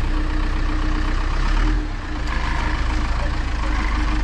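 Heavy vehicle engine idling steadily at close range. The sound dips briefly about two seconds in, and after that a steady higher whine runs along with the idle.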